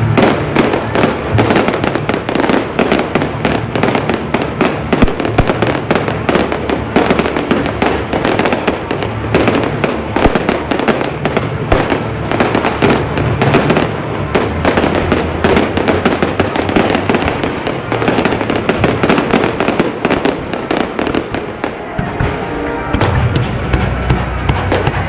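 Fireworks display: a dense, continuous barrage of bangs and crackles, many per second, thinning a little near the end.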